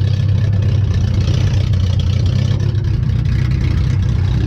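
A compact demolition derby car's engine running loud and steady, heard from inside the car.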